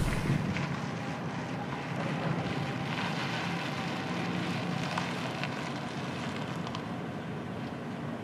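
Outdoor ambience of steady distant traffic hum with some wind, and a few faint ticks.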